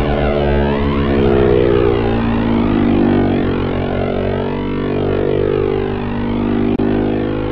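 Software modular-synth drone: a dense, steady stack of low held tones with a raspy upper layer swirling through an x42 Whirl rotary-speaker effect and hall reverb. A brief click near the end.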